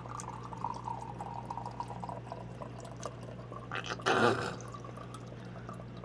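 Goryangju (kaoliang liquor) pouring slowly from a bottle in a thin trickle, the flow held back by the bottle's small spout holes, with a brief louder burst about four seconds in.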